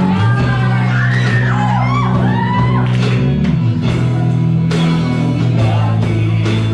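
Live band playing a song: electric guitar with steady low bass notes and drums, with a singer at the microphone and the melody sliding up and down in the first few seconds.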